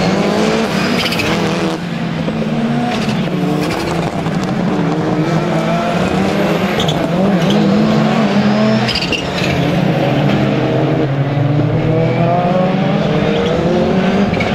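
Several rallycross Super Car engines revving hard and changing gear as the cars race through the corners, with the pitch of several engines climbing and dropping over and over. A few sharp cracks cut through the engine noise.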